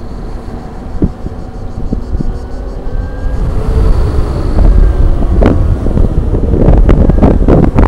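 Wind buffeting the microphone of a Zero FX electric motorcycle in motion, over a faint whine from its electric drive that rises in pitch during the first few seconds. The wind grows louder toward the end, with scattered knocks.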